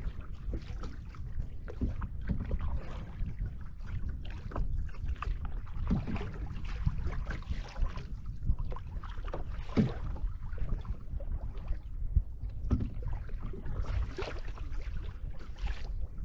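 Choppy river water splashing and slapping against the hull of a canoe under way, in irregular splashes over a steady low rumble.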